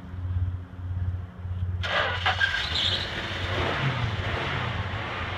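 1982 Dodge Ram 150 pickup's slant-six engine running, with a low pulsing hum at first and a louder burst of noise about two seconds in.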